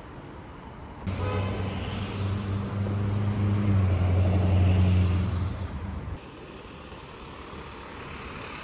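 City street traffic: a motor vehicle's low engine hum starts abruptly about a second in, grows louder to a peak near five seconds and cuts off about six seconds in. Quieter passing traffic follows.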